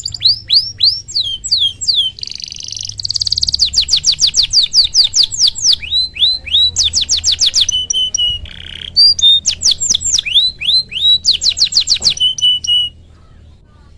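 Domestic canary singing in long, fast runs of falling 'cuit cuit' whistles mixed with buzzy trills, stopping abruptly near the end.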